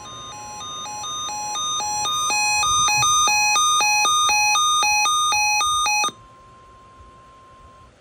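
NOAA weather radio sounding its alert for a severe thunderstorm watch: a loud pulsing two-tone alarm beep, about two beeps a second, growing louder over the first two seconds, over the steady 1050 Hz weather-service attention tone. The beeping cuts off suddenly about six seconds in, and the steady tone stops near the end.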